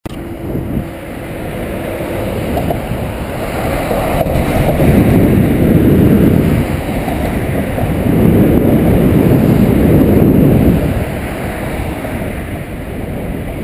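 Wind rumbling on a helmet-mounted GoPro's microphone while cycling, with road traffic passing alongside; it swells loud twice in the middle.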